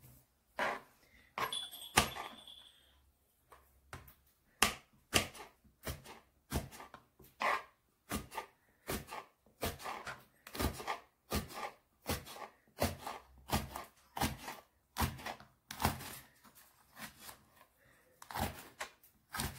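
Kitchen knife slicing a red pepper into rings on a plastic cutting board: a steady run of short knocks of the blade meeting the board, about two a second, with a louder knock about two seconds in.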